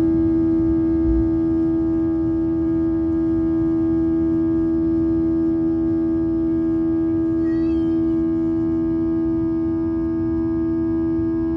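Boeing 737-800's CFM56-7B jet engines heard from inside the cabin, running at steady power: a loud, even drone with one strong steady hum tone over a low rumble.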